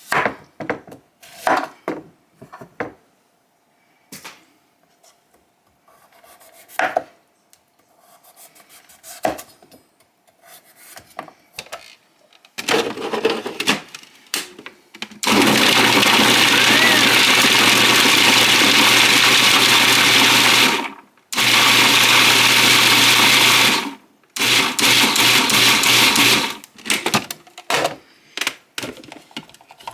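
Electric food chopper chopping sweet potato into small pieces. After some scattered knocks, the motor runs steadily for about six seconds, stops, runs again briefly, then goes in short pulses near the end.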